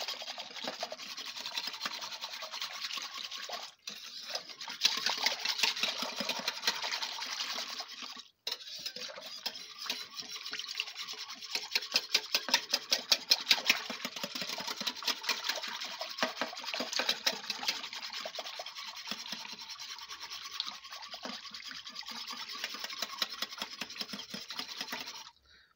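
Wire whisk beating a thin, creamy liquid in a crock-pot insert: a steady wet scraping with rapid clicks of the wires against the side of the pot, breaking off briefly twice in the first nine seconds.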